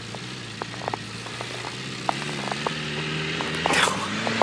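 Suzuki Samurai's four-cylinder engine running under throttle as the little 4x4 drives through snow. Its note wavers in pitch and grows steadily louder, with scattered sharp clicks and a brief hiss near the end.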